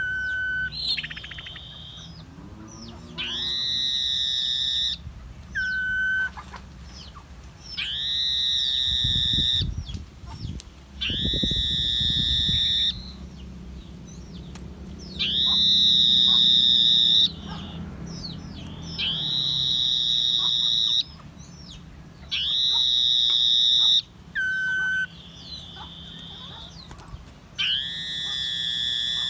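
Common iora in breeding condition calling: about nine long, high whistles, each held about two seconds and repeated roughly every three seconds, with a few short lower notes between them.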